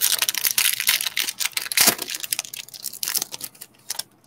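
Plastic-foil trading-card pack wrapper being torn open and crinkled by hand, a dense crackle that stops near the end.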